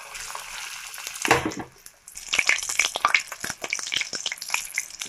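Batter-coated parshe fish (gold-spot mullet) frying in hot mustard oil in a kadai: a steady sizzle with a louder burst about a second in, then dense crackling and popping as the batter fries.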